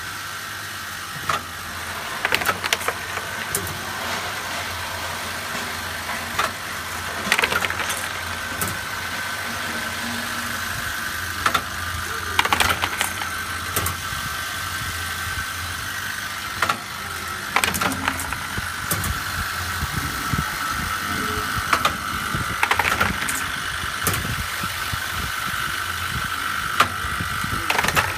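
Automated aluminum-tube laser marking machine running: a steady high whine over a low hum, with a short burst of clacking from its tube-handling mechanism about every five seconds.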